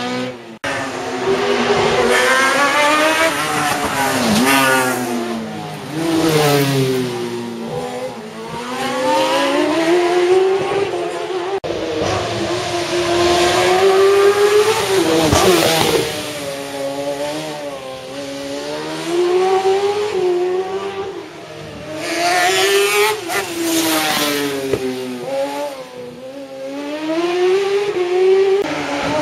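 Race car engines revving hard and dropping back again and again as the cars brake and accelerate through cone chicanes, the pitch rising and falling every second or two. The sound breaks off abruptly about half a second in and again near the middle.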